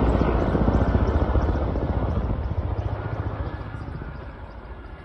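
Helicopter flying over, its rotor beat loud at first and fading steadily as it moves away.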